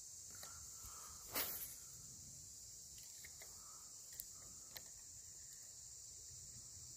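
Steady high-pitched chorus of insects, with one brief louder noise about a second and a half in and a few faint clicks after it.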